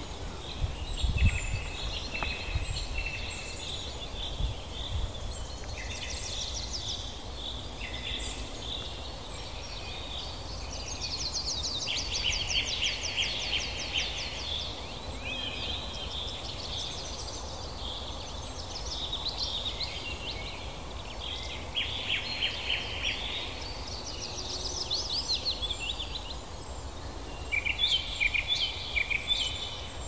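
Several songbirds singing over a steady background hiss: repeated chirps and fast high trills, one phrase after another. A few low rumbles come in the first few seconds.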